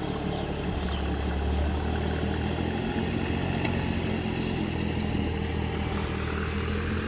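Heavy diesel engine running steadily at an even, low pitch.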